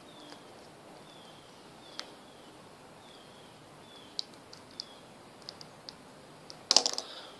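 Small clicks and rustles of hands handling a tape-wrapped LED microlight, with a louder crackling rustle a little before the end. Faint, short chirps of a bird repeat in the background.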